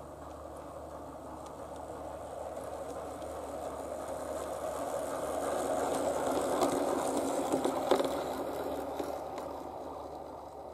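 Bachmann G scale Peter Witt streetcar model running along garden railway track, its motor and wheels rolling. The sound grows louder as it approaches, peaks with a few sharp clicks as it passes, then fades away.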